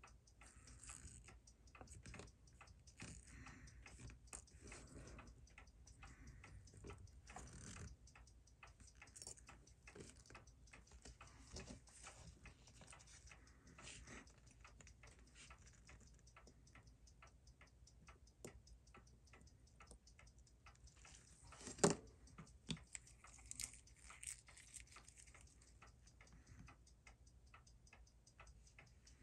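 Faint, fast, even ticking of a mechanical watch movement, with one sharper tap of a tool on metal about 22 seconds in.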